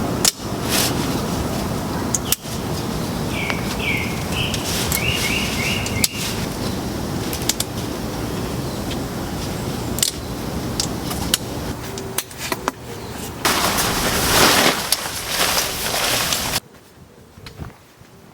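Steady rushing outdoor noise with scattered sharp clicks. A bird gives a quick run of short chirps about four seconds in. Near the end a louder hiss swells for about three seconds and then cuts off abruptly.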